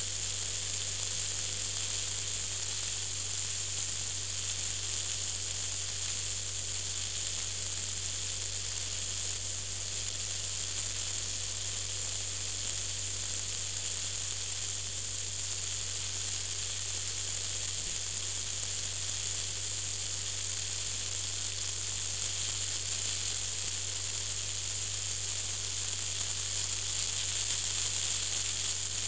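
Steady high hiss over a low, even hum inside a moving car, with no distinct events: recording noise with the car's road and engine drone beneath.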